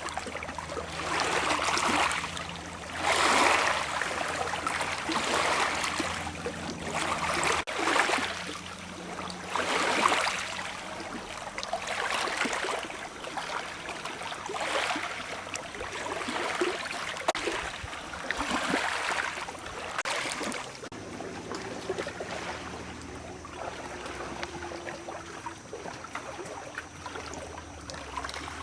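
Small waves lapping on a lake's pebbly beach, a wash every two to three seconds, settling to a quieter, steadier lapping near the end.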